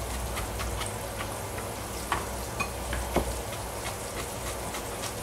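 Chef's knife chopping onion on a plastic cutting board: a run of light quick taps with a few sharper knocks about two and three seconds in, over a steady sizzle of pork sausage frying in a pan.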